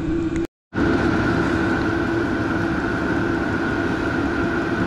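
A steady hum and hiss with two held tones, one low and one higher, broken by a brief dropout to silence just under a second in.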